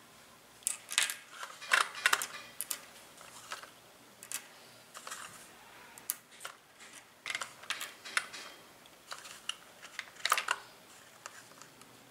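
Miniature porcelain teacups and saucers clicking and clinking lightly as they are handled and set into a plastic tray, in irregular small taps with a few louder clusters, about a second in and again near the end.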